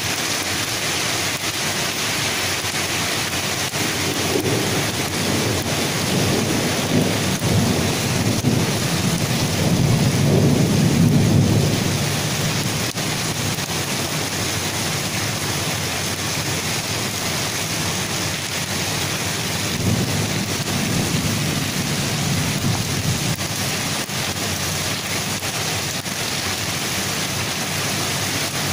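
Heavy rain falling steadily, with a long roll of thunder rumbling from a few seconds in, loudest just before the middle, and a fainter rumble later on.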